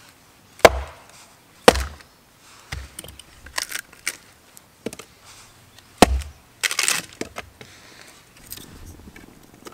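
Split firewood being handled: three loud, sharp wooden knocks with lighter cracks and clatter between them.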